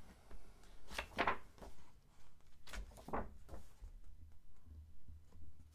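Pages of a thick hardcover comic omnibus being turned, with two main page swishes about two seconds apart.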